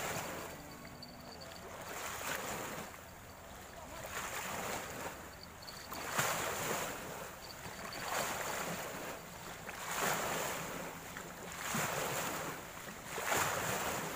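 Wind and river water at the bank, a rushing noise that swells and fades in surges about every two seconds.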